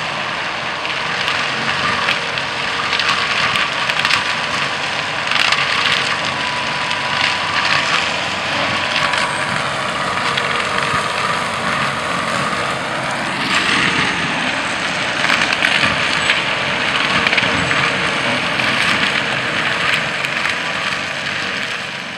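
Raptor 300 land-clearing machine running at work, a steady engine noise with dense crackling from the ground and debris its front implement is working through.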